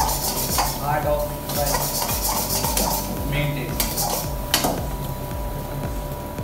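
Metal spatula scraping and clanking against a wok as rice is stir-fried, a run of short scrapes and clinks with one sharper clank about four and a half seconds in.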